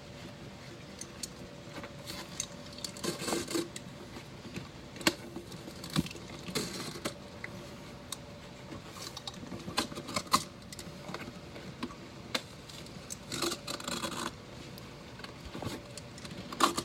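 Scattered clicks, scrapes and light metallic clatter of hand tools and the subwoofer's parts being cut and pried as a Sundown Audio X-15 subwoofer is pulled apart for a recone.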